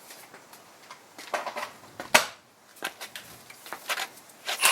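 Scattered metallic clicks and knocks of tools being handled, with one sharper knock about two seconds in, as a socket and 1/2-inch impact wrench are set up on the rear hub bolts.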